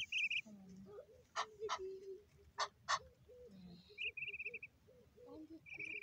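Goslings peeping in short rapid trills, three bursts in all, with soft low calls running underneath. Four sharp clicks fall in the middle and are the loudest sounds.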